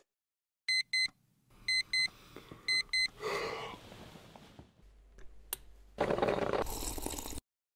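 Alarm clock beeping: three pairs of short, high-pitched beeps, about one pair a second. Later a drip coffee maker hisses for over a second before the sound cuts off suddenly near the end.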